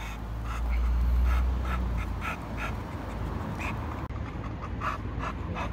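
American Bully dog panting, about three breaths a second. A low rumble runs through the first two seconds.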